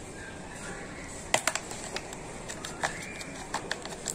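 Utility knife cutting into a thin plastic drink bottle: irregular sharp clicks and cracks of the plastic, starting about a second in.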